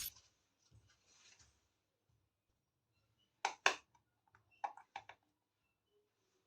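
Small plastic toy pieces clicking lightly as they are handled: two quick clicks about three and a half seconds in, then two more about a second later.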